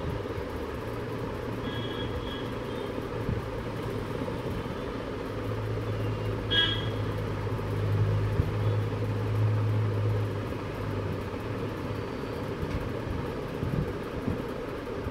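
Steady background noise with a low engine drone that grows louder about five seconds in and fades again after about ten seconds, like a passing vehicle, and a brief high chirp in the middle.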